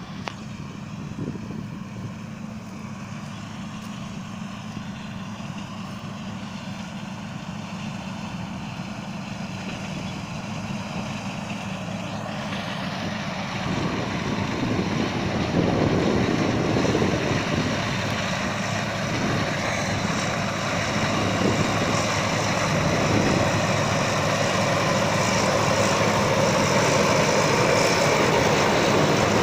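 John Deere S660 combine harvester running as it harvests soybeans: a steady engine hum under the rushing noise of its threshing machinery. The sound grows steadily louder, and the rushing noise thickens about halfway through.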